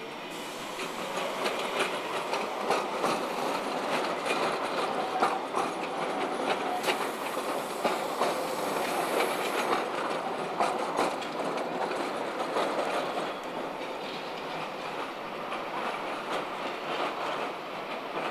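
Alstom Citadis low-floor tram running past close by and taking a curve, its wheels clicking over rail joints and points. A high-pitched wheel squeal comes in about a third of the way through and stops just past the middle.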